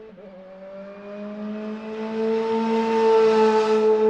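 Car engine accelerating hard, its pitch climbing steadily after a brief dip near the start, like a gear change. It grows loud about three seconds in and begins to fade near the end.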